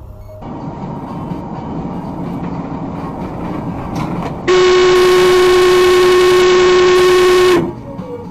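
A vehicle horn held at one steady pitch for about three seconds, starting a little past the middle, as a warning to a small hatchback pulling out into the lane ahead. Around it is the steady running and road noise of the moving vehicle.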